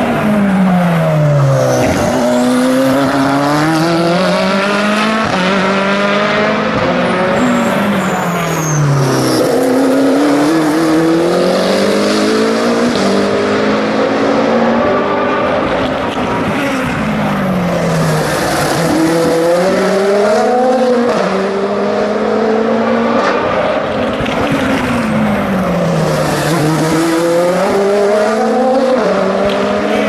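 Endurance race cars from the Hypercar, LMP2 and GTE classes, one after another, braking into a slow corner with engine pitch dropping in steps as they downshift. Each then accelerates away with the pitch climbing through upshifts. Several cars overlap, coming through roughly every six to eight seconds.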